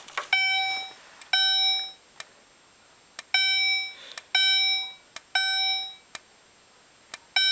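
Fire-alarm speaker strobe sounding its chime tone in the temporal-three evacuation pattern: three bell-like chimes about a second apart, each fading over about half a second, then a pause of about two seconds before the next three. A few short sharp clicks fall between the chimes.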